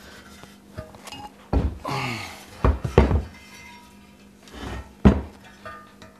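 Metal lathe bed extension being lifted, turned over and set back down on a wooden workbench: a series of clanks and thuds with some short metallic ringing. The sharpest knocks come about three and five seconds in.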